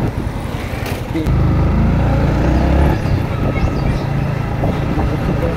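Yamaha MT-15's 155 cc single-cylinder engine running as the motorcycle is ridden along a road, with a low rumble of wind and road noise. The engine sound swells for a stretch between about one and three seconds in.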